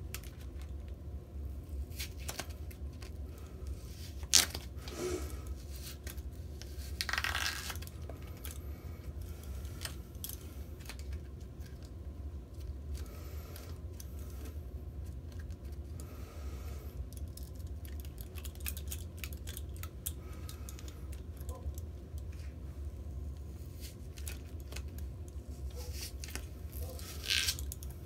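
A deck of playing cards being torn into quarters by hand while the steel chain of handcuffs clinks. Scattered clicks and rustles are broken by a sharp click about four seconds in and tearing bursts about seven seconds in and again near the end, over a steady low hum.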